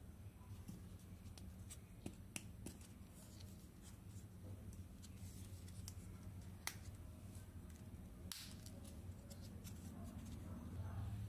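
Faint scattered clicks and taps of small toys being handled, over a low steady hum.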